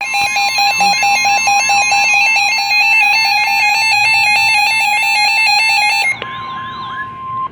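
Weather radio alert tones: a fast pulsing electronic alarm beeping over a steady tone near 1 kHz, the NOAA Weather Radio warning alarm tone. About six seconds in the pulsing stops and the steady tone carries on alone, announcing a flash flood warning.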